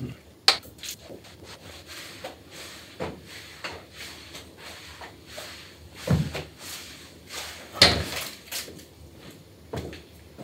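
Irregular knocks and thumps of things being handled, with rubbing and a faint hiss between them; the two heaviest thumps come a little past the middle and about three-quarters of the way through.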